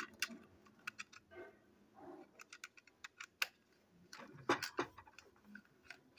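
Plastic toy train locomotive handled in the hand, making scattered light clicks and taps at irregular intervals, a few louder ones around the middle.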